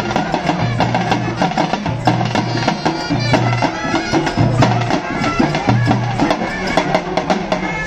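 Live traditional festival drumming: a group of barrel and frame drums beating a fast, dense rhythm, with a high wavering melody over it.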